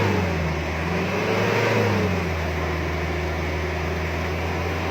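Diesel engine being revved: a rev falls away at the start, another rises and drops back about a second in, then it settles to a steady idle. It is being blipped to check for black exhaust smoke after an engine treatment.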